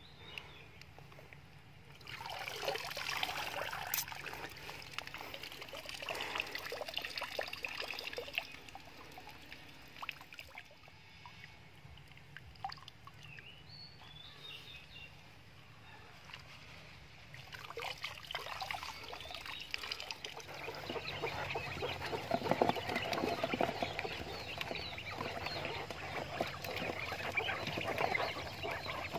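Water trickling and dripping, in spells with many small drips, as a plastic basket of azolla is lifted out of a pond.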